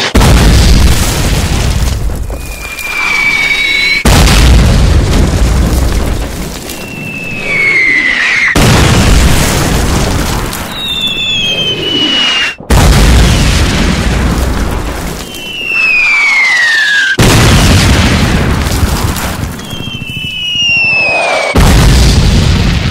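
Repeated artillery shell explosions: a falling whistle, then a sudden deep boom with a long rumbling decay, six times about four seconds apart.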